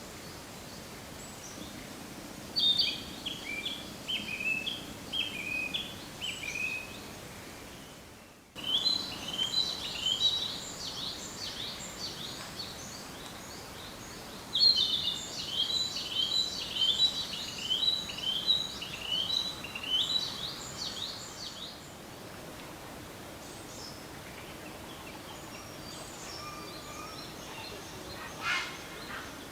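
Oriental reed warbler singing its loud, grating chatter of repeated harsh notes in long runs, broken by pauses; later only faint, scattered bird calls.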